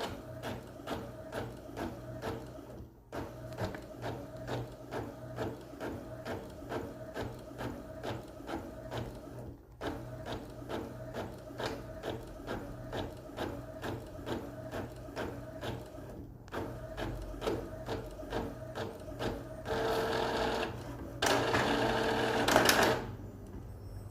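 Epson EcoTank inkjet printer printing: the print head carriage moves back and forth in a steady rhythm of about two to three strokes a second, pausing briefly three times. Near the end it gives way to a louder, steady whir lasting a few seconds.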